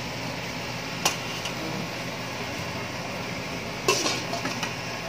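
A light knock about a second in, then near the end a glass steamer lid set down onto a metal steamer, clattering once and rattling a few times as it settles, over a steady background hiss.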